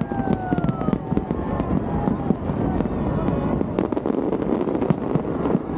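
Fireworks display: dense, rapid bangs and crackles over a continuous rumble, with a few long gliding tones over the top.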